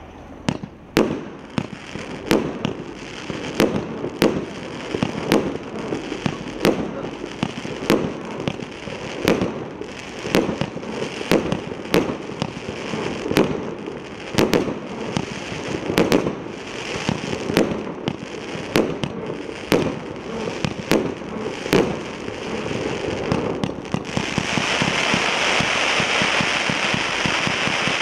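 A 72-shot display firework cake with mixed 20, 25 and 30 mm tubes firing shot after shot, each a sharp bang, about one and a half a second. About 24 seconds in it changes to a continuous dense crackle and hiss as the tubes fire in quick succession, sending up glittering tails.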